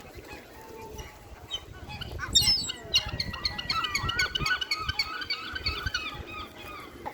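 A flock of seagulls calling over one another in many short, rapid cries, starting about two seconds in and thinning out near the end, as they crowd in to be fed.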